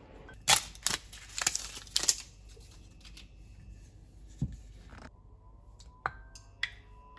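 Kitchen handling sounds: a quick clatter of glass jars and a screw-top lid being handled and opened, loudest in the first two seconds, then a thump. Near the end a wooden spoon knocks twice against a glass bowl, and the glass rings briefly after each knock.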